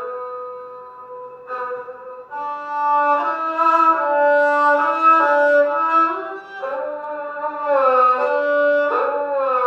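Replica of an ancient Chinese bowed fiddle, modelled on the one bowed string instrument in a Dunhuang mural, playing a slow melody. It opens on one long held note, then moves through sustained notes with sliding pitch bends, in a mid-range tone.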